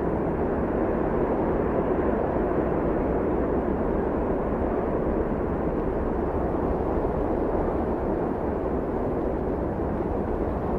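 A tornado's steady roar of wind at close range: an even rushing noise that does not let up.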